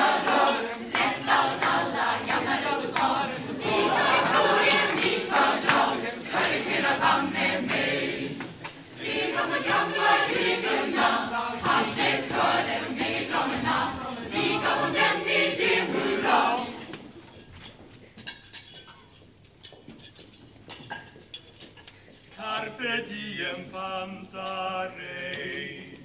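Mixed choir singing, full and loud for about the first sixteen seconds, then dropping to a quiet stretch of several seconds before voices sing again near the end.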